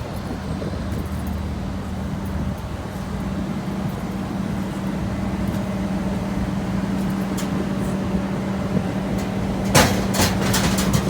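Steady low machine hum over rumbling noise, likely wind on the microphone, with a quick cluster of sharp clicks near the end.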